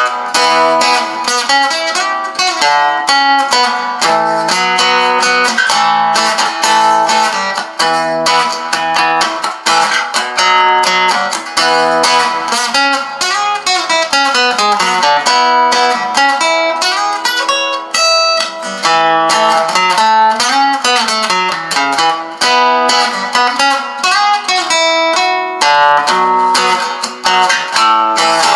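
Madera acoustic guitar, newly fitted with a pickup, being played: plucked notes and strummed chords throughout, with a few notes sliding up and down in pitch.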